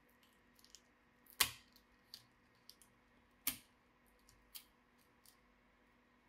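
Handling of laptop parts and tools during disassembly: a scatter of small clicks and taps, with two louder sharp clicks about a second and a half and three and a half seconds in.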